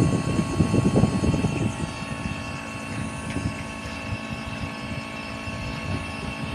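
Fan motors of a 4-ton air conditioner running on a test bench, powered by its repaired control board: a steady hum with several faint whining tones. A low buffeting rumble is louder for about the first two seconds, then settles.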